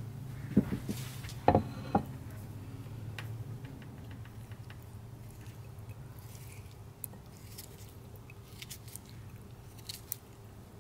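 A few knocks in the first two seconds, then a knife slicing a soft peeled tomato over a ceramic bowl, with faint squishy cuts and a few sharp ticks of the blade near the end.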